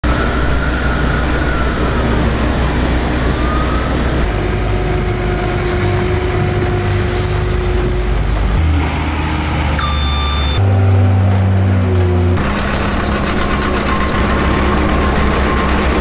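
Engines of asphalt paving machinery and trucks running, a steady low drone that changes abruptly several times. A brief high tone sounds about ten seconds in.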